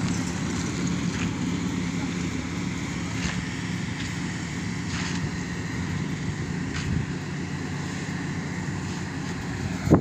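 Combine harvester harvesting rice: a steady engine drone with a few faint clicks.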